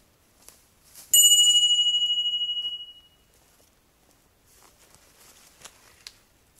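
A single bright notification-bell ding from a subscribe-button overlay, struck about a second in and ringing out over about two seconds. Faint rustling footsteps through forest undergrowth follow in the second half.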